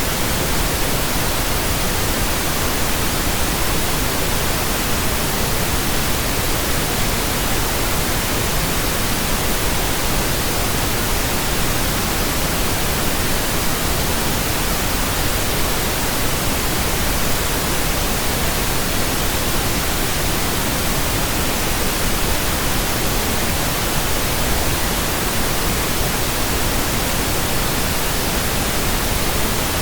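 Steady pink noise: an even, unbroken hiss spread across all pitches, with no change in level throughout.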